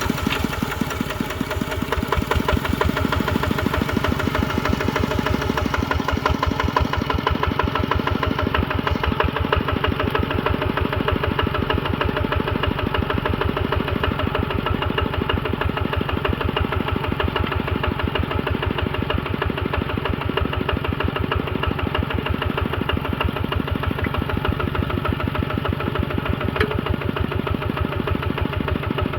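Engine running steadily at a constant speed with an even, regular beat.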